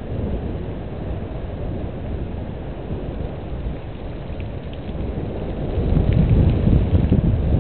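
Wind buffeting an outdoor microphone: an uneven low rumble that grows stronger near the end.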